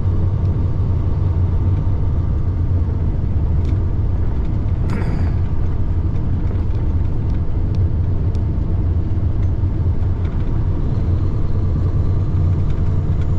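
Semi truck driving, heard inside the cab: a steady low diesel engine and road drone, with a short burst of noise about five seconds in.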